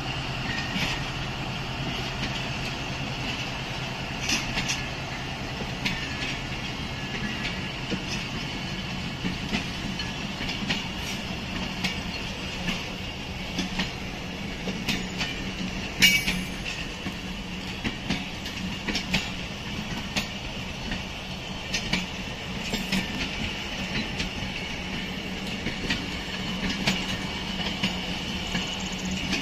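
Passenger coaches of a diesel-hauled train rolling slowly past as it pulls out, wheels clicking irregularly over rail joints above a low steady hum, with one sharp, loud clank about halfway through.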